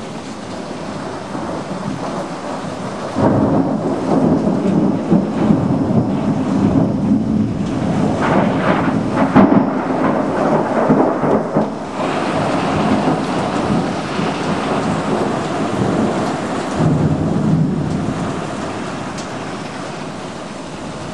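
Thunder rumbling over steady heavy rain: a long rumble starts suddenly about three seconds in, grows sharper near the middle and dies away, with a smaller swell of thunder later on.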